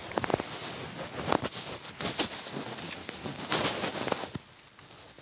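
Rustling and scraping with scattered light clicks and knocks, coming and going in uneven bursts.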